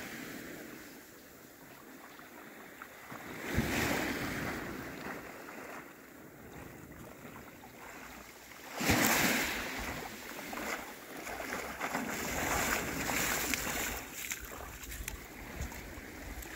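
Small waves washing onto a beach, with wind buffeting the microphone. Two louder surges come about three and a half and nine seconds in.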